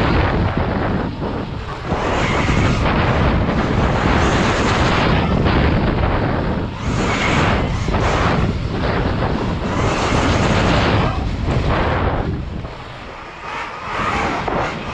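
Onboard sound of an electric KTM Freeride dirt bike being ridden on a dirt motocross track: loud wind noise on the helmet camera's microphone and the rumble of the ride over the dirt, in surges that ease for a moment near the end. A faint electric-motor whine comes and goes.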